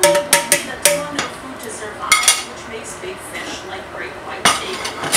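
Metal tongs clinking against a large metal roasting pan full of broth. A quick run of clinks comes at the start, another group about two seconds in, and more near the end.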